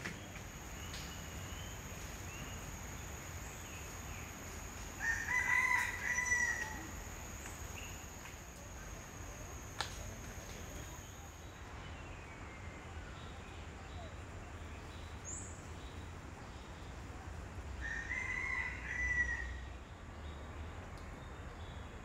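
A rooster crows twice, each crow about a second and a half long, roughly thirteen seconds apart, over a faint steady high-pitched insect whine.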